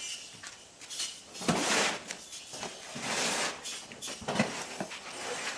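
Footsteps on a concrete floor and a large cardboard box being grabbed and shifted, with scattered knocks and two longer rustling scrapes.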